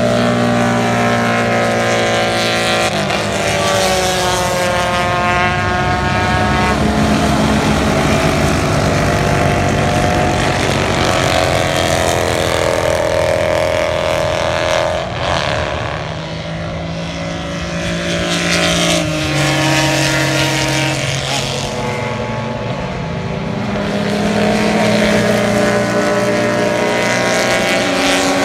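Several classic racing motorcycle engines run at high revs on the circuit, their sounds overlapping. The pitch steps up and down with gear changes and slides down as bikes pass. It is quieter for a few seconds in the middle.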